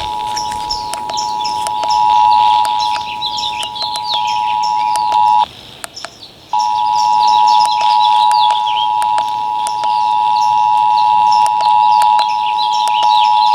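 Emergency Alert System two-tone attention signal (853 Hz and 960 Hz together) played over a radio ahead of a required monthly test. It is a loud, steady dual tone that drops out for about a second roughly five seconds in, then resumes. Birds chirp in the background, with scattered clicks.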